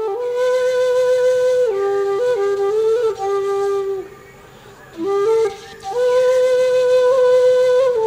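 Background music: a flute playing a slow melody of long held notes, with a short pause about four seconds in.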